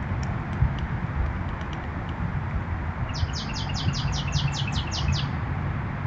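A songbird singing a rapid trill of about a dozen high notes, about six a second, lasting about two seconds, with a few faint chips before it. A steady low rumble runs underneath.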